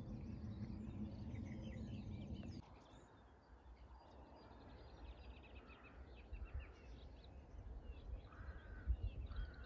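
Faint birdsong: scattered chirps, with a couple of short calls near the end. A steady low hum underneath stops abruptly about two and a half seconds in, leaving low wind rumble on the microphone.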